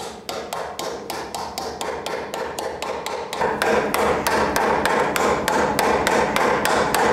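Mallet tapping a new steering-head bearing race square into a steel motocross frame's head tube: a steady run of quick, even taps, about four a second, getting louder about halfway through.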